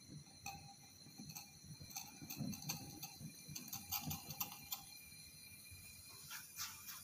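Faint, irregular clicks and ticks from a glass test tube being handled in a metal test-tube holder while it is heated over a Bunsen burner.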